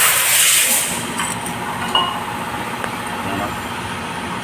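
Geely Azkarra 1.5-litre engine idling steadily while it is checked for a cylinder 1 misfire. A loud hiss fills the first second, and there is a single click about two seconds in.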